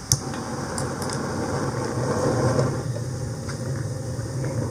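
A gas stove burner lit with a sharp click, then the flame burning steadily with a low rushing noise.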